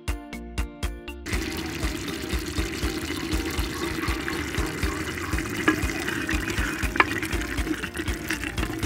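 Steady watery noise, dense and hissing with small crackles, takes over about a second in. A background music beat carries on faintly underneath, and music plays alone before the water noise starts.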